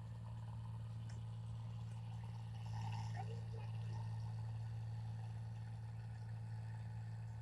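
Large rice combine harvester's engine running with a steady low drone.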